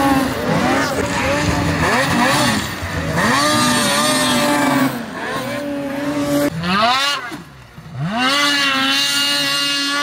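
Snocross race snowmobiles' two-stroke engines revving hard, the pitch climbing and falling again and again as the sleds accelerate and back off the throttle. About three-quarters of the way through one engine drops away briefly before the next revs up steeply.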